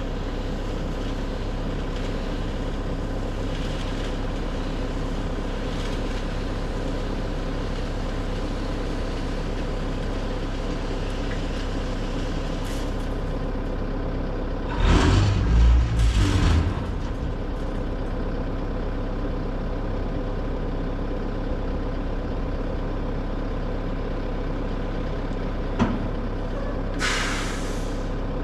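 Dump truck's diesel engine running steadily. About halfway through comes a louder rumbling burst lasting about two seconds, and near the end a short hiss of air like an air brake.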